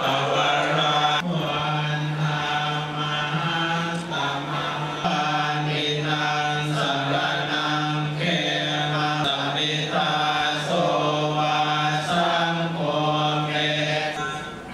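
Thai Buddhist prayer chanting led by monks: many voices reciting together on a steady low monotone, broken by short pauses every few seconds.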